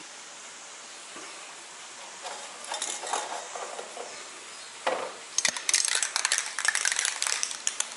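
Rummaging through a cluttered metal shop shelf for a spray can: scattered clinks and rattles of metal aerosol cans and plastic items, with a thump about five seconds in. The rattling turns dense and quick over the last three seconds.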